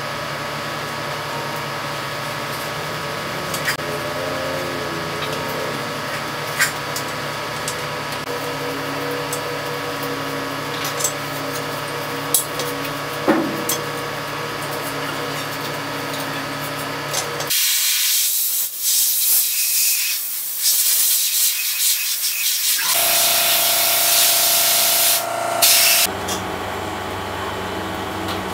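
Scrubbing and handling of a small model jet, with a few sharp clicks over a steady machine hum. About 17 seconds in, a loud hissing spray starts and runs for about eight seconds, with brief dips, then cuts off.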